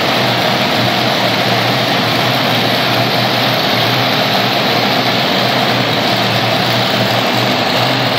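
Monster truck engine running steadily at low revs as the truck creeps across the dirt floor, heard across a large indoor arena.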